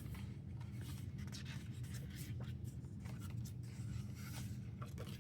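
Pages of a K-pop album photo book being handled and turned: soft, irregular paper rustles and rubs over a steady low background hum.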